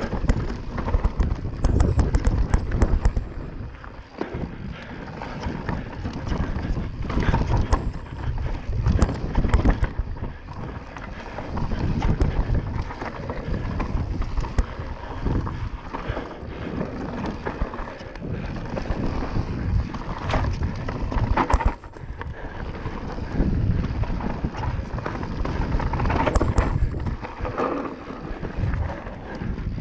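Mountain bike descending a rough forest trail at race pace: wind buffets the microphone, the tyres roll over dirt and roots, and the bike clatters with many short knocks and rattles over the bumps.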